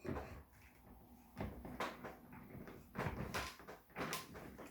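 Office chair's star base being fitted onto a new gas lift cylinder: a series of separate knocks and clunks, about half a dozen, spread through the few seconds.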